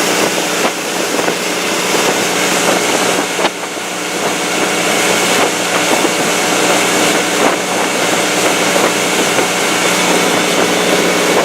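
Motorboat running at speed on plane: a steady engine drone under a constant rush of wind and water.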